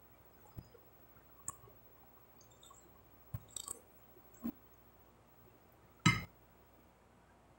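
Sparse small clicks and clinks of a metal spoon and fingers against a glass plate of food, with one louder knock about six seconds in.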